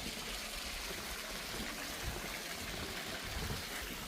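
Garden fountain water splashing and trickling steadily.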